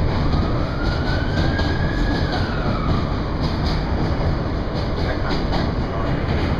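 New York City subway train running over the Williamsburg Bridge, heard from inside the car: a steady low rumble with wheels clicking over rail joints. A faint whine rises and then falls during the first three seconds.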